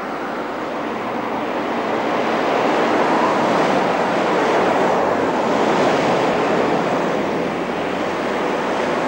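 Road traffic on a hill street: a steady rush of tyres and engines from a double-decker bus and cars, swelling in the middle as vehicles pass close.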